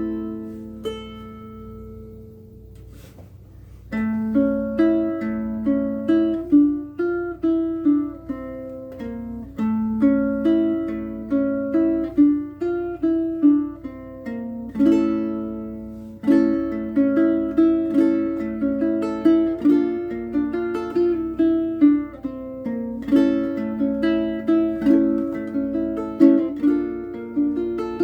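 Bruko short-scale baritone ukulele with unwound PHD low-G gCEA strings being played: a chord rings and fades for the first few seconds, then a plucked melody with chords picks up about four seconds in and carries on.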